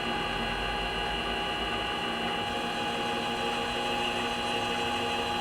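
Machine tool running steadily at low speed while a 1/2 inch reamer cuts into an aluminum engine-cylinder bore: an even hum with a few thin, steady whining tones above it.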